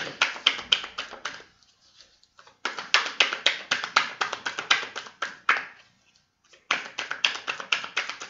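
A deck of tarot cards being shuffled by hand: the cards slap together in quick runs of clicks, about eight to ten a second, in three bouts with two short pauses.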